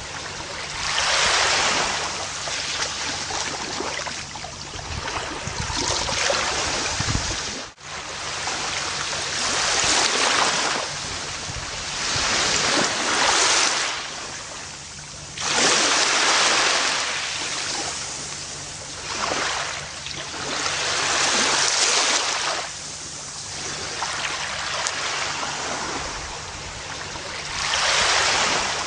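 Gentle ocean waves washing onto a beach. Each wash swells and fades every few seconds, with one brief, sudden drop-out about a third of the way in.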